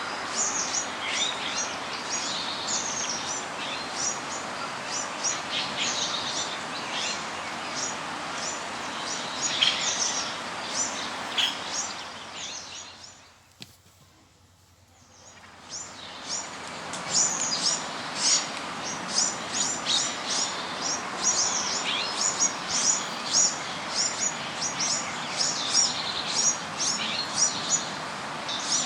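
Many small birds chirping in quick, overlapping calls over a steady background hiss. About halfway through the sound fades almost to silence for a couple of seconds, then fades back in with the chirping livelier than before.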